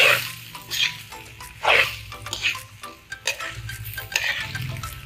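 Metal spatula scraping and tossing fried rice around a large wok, about one stroke a second, over a light sizzle of frying.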